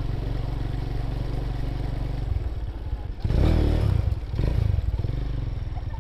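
Motorcycle engine running at idle, swelling louder in a brief rev about three seconds in and again just before five seconds.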